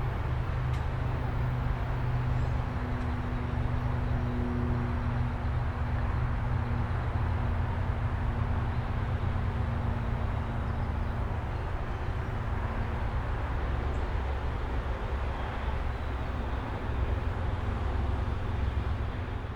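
Train locomotive running: a steady low rumble with a held engine hum, beginning to fade near the end.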